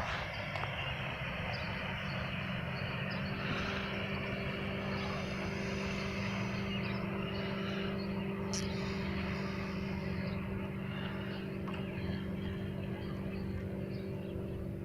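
An engine running steadily with a constant low hum, joined by a higher hum partway through, and a brief sharp click about eight and a half seconds in.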